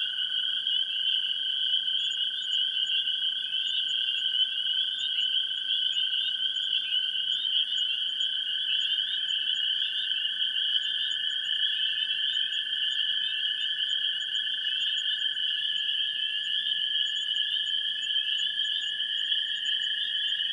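Dense, unbroken chorus of many frogs calling at once, a shrill mass of rapid overlapping chirps.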